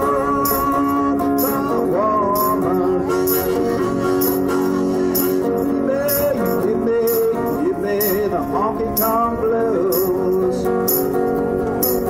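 Live country-style music on a hollow-body electric guitar, with a steady jingling beat. A man's voice sings briefly in the middle.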